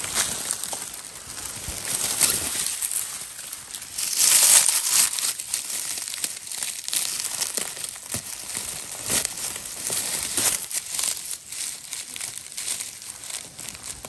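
Dry rustling and crackling, many short crisp snaps over a steady rustle: footsteps through dry leaf litter and undergrowth in a forest.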